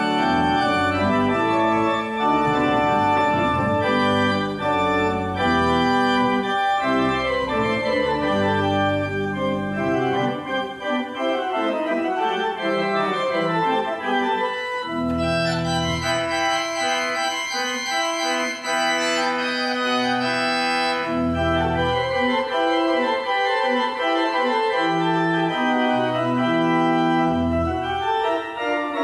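Church organ played by hand: sustained chords changing every second or so over a moving bass line. For a few seconds around the middle the sound turns brighter and fuller.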